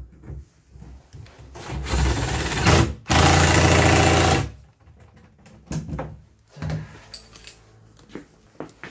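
Power driver running in two short bursts, the second longer, driving in the bolts that fasten the box to the motorcycle, followed by a few light knocks and clicks.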